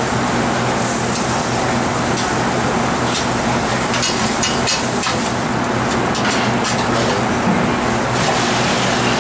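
Meat sizzling on a flat-top griddle while metal spatulas scrape and click against the steel, turning and chopping it, over a steady low hum from the kitchen's ventilation.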